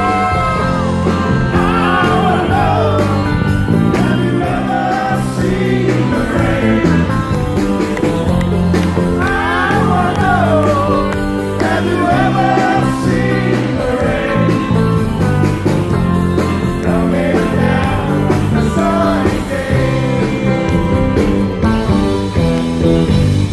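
Live rock band playing with a lead singer, drums, bass and guitars, recorded loud and full from the audience.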